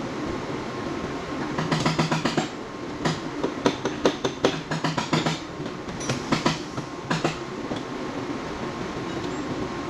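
Hammer tapping on a car's sheet-metal body panel in quick runs of sharp strikes, several a second, starting a couple of seconds in and stopping after about five seconds, with short pauses between runs.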